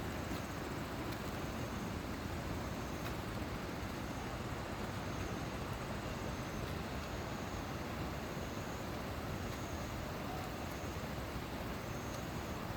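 Mountain valley stream rushing loudly: a steady, even roar of flowing water. A faint high chirp repeats about once a second over it.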